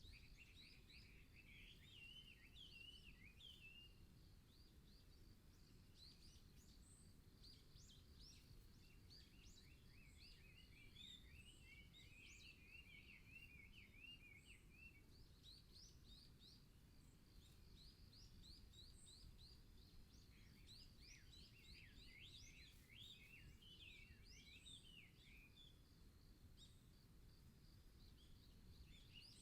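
Faint forest birdsong: small birds twittering in quick flurries of chirps, three times, over a thin steady high note and a low rumble of wind.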